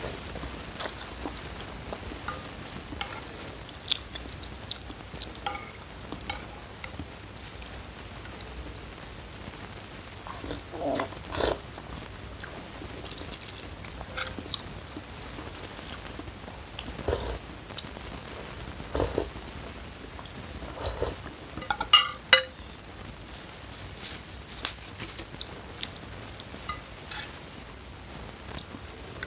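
Close-up eating sounds of instant noodles in spicy chili broth: slurping, chewing and smacking, with a spoon and fork clicking and scraping in the bowl. Scattered short sounds, with a sharper cluster about three-quarters of the way through.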